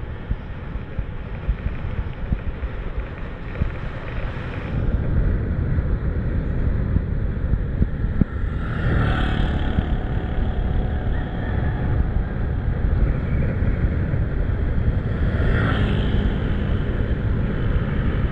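Wind buffeting the microphone of a camera riding on a bicycle, over road traffic; a motor vehicle passes about halfway through and another near the end.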